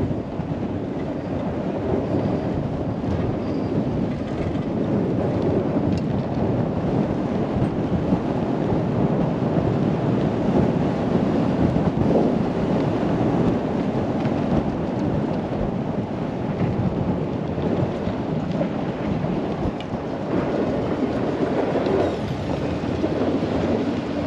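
Continuous rumbling noise of a snowboard sliding and carving over snow, mixed with wind buffeting the helmet camera's microphone.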